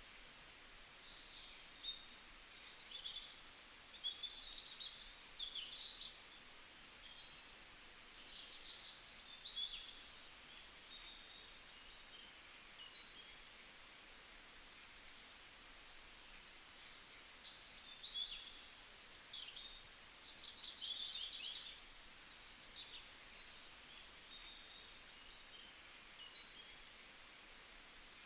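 Small songbirds chirping and twittering again and again in short, high calls over faint outdoor background noise.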